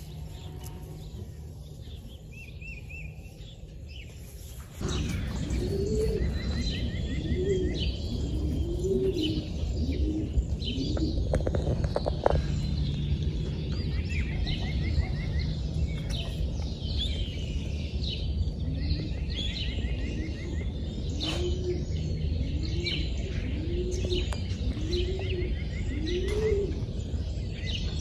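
Racing pigeons cooing in the loft: a run of repeated coos, each rising and falling in pitch, coming in bunches from about five seconds in, with higher chirps of other birds mixed in over a steady low hum.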